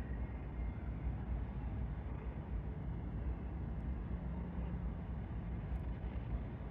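Steady low outdoor rumble of background noise, with a faint hum near the middle.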